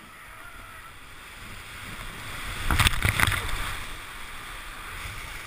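Whitewater rushing around an inflatable raft, growing louder, then a burst of loud splashes about halfway through as a wave breaks over the raft and onto the camera. Rushing water continues after.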